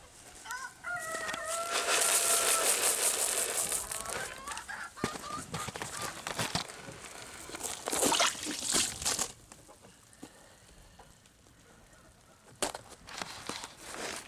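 A rooster crows once near the start, a call that rises and then holds for about two seconds. Rustling and scuffling noises with some clicks follow.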